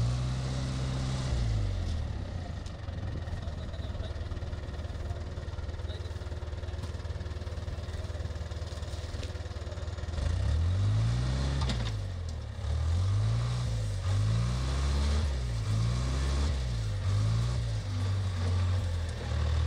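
Wheel loader's diesel engine working its bucket in loose earth. It revs up and down once at the start, runs steadily for several seconds, then revs up and down over and over, about once a second, from about halfway through.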